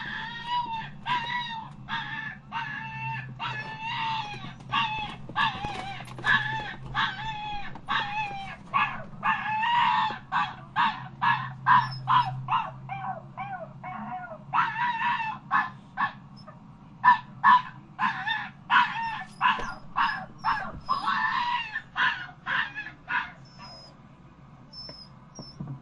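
Dog giving a rapid, repeated series of high-pitched whining cries, some bending up and down in pitch, which stop near the end.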